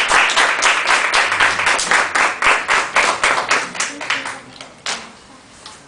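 Audience applauding, a dense run of hand claps that dies away about four and a half seconds in, with one last clap shortly after.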